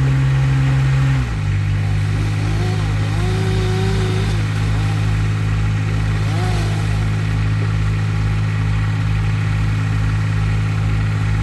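Engine of a tree service's heavy equipment running steadily, dropping to a lower, steady speed about a second in. Faint rising-and-falling whines sit over the engine.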